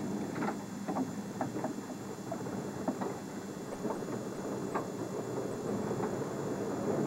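Vehicle engine running, heard from inside the cab, with scattered short knocks and rattles.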